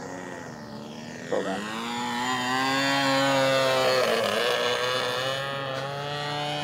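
Radio-controlled model float plane's engine running at high throttle on a low pass. It gets suddenly louder about a second and a half in, swells to a peak, and its pitch drops a little as the plane goes by and climbs away.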